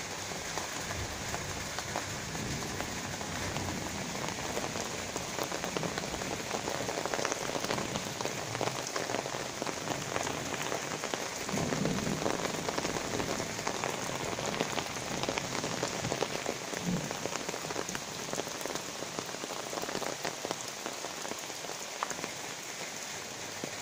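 Rain falling steadily in a thunderstorm: an even hiss of drops with fine patter.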